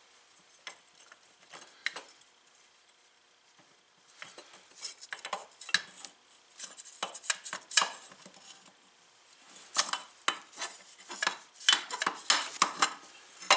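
Metal hand tools and loose bolts clinking against the brake disc hardware on a Honda 300EX's rear axle, in short irregular clusters of sharp clinks that come thickest in the second half.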